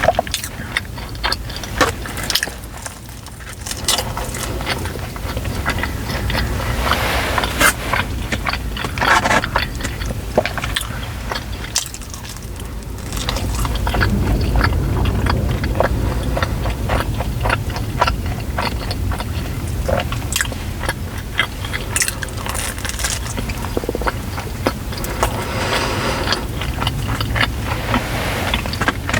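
Close-miked eating: biting and chewing of pizza and chicken wings, with wet mouth sounds and crunches in irregular bursts. A steady low hum runs underneath.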